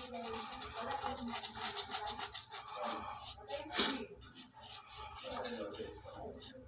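Paintbrush bristles scrubbing paint onto a wall in quick back-and-forth strokes, a dense rubbing sound, with one louder scrape a little under four seconds in.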